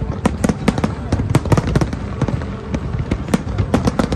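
Fireworks display: shells bursting in a rapid, irregular barrage of sharp bangs and crackles, several a second.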